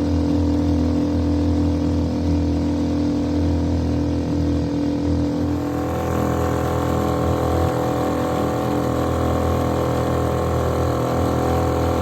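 Small pull-start outboard motor running steadily as the boat moves along; its pitch rises a little about halfway through as the revs pick up.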